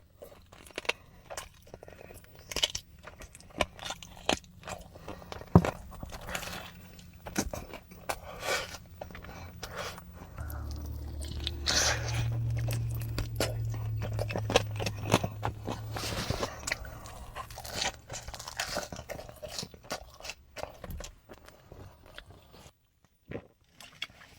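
Close-miked eating of buffalo chicken wings: repeated crunchy bites and chewing. A low steady hum runs under the middle stretch.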